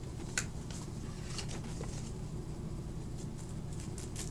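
Scattered light clicks and rustles of objects being handled, one sharper click just after the start, over a steady low room hum.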